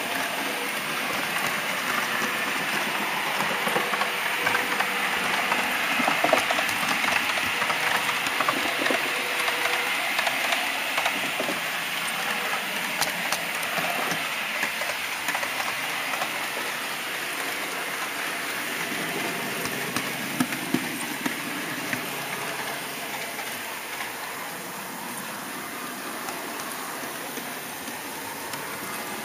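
Model train's wheels and motor running along the track, heard from a camera riding on the train: a steady rushing rattle with scattered clicks, easing off a little near the end.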